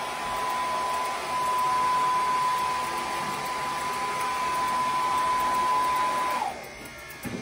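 Pet grooming blow dryer running with a steady rushing noise and a high whine. About six and a half seconds in it is switched off, its whine sliding down as it stops.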